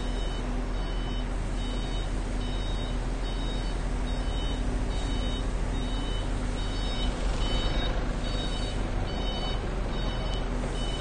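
Truck-mounted crane's warning beeper sounding a steady series of short high beeps, a little under two a second, over the truck's engine running as the telescopic boom extends. The engine gets a little louder about seven seconds in.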